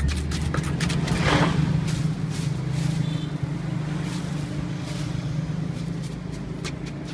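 A wooden pestle knocks several times in a wooden mortar in the first second or two, then only now and then, over a steady low engine hum.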